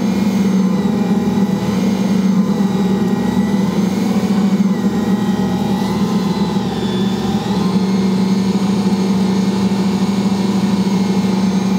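Ankarsrum stand mixer running steadily, its bowl turning bread dough against the kneading roller: a steady motor hum.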